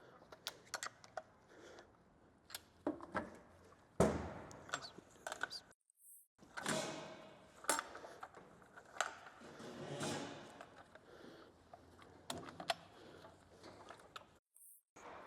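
Hand work on a chainsaw: scattered clicks, knocks and short scrapes of metal parts and tools being handled. The sound cuts out completely twice, briefly.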